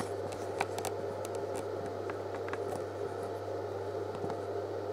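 Steady low electrical hum under a background hiss, with a few faint scattered clicks.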